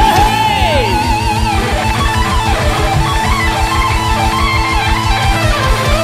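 Live rock band playing: electric guitars over a rapid, steady bass-drum pulse, with a lead guitar bending and wavering in pitch in the first second or so.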